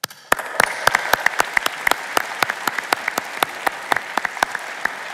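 Audience applause in a large hall, with loud, sharp claps from people clapping close to the microphones.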